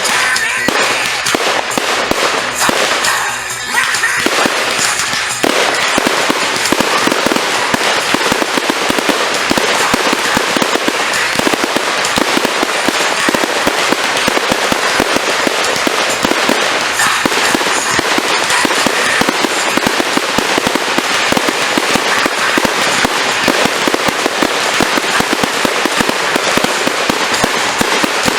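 Fireworks: a dense barrage of rapid crackling reports, many per second, building to a continuous volley from about five seconds in.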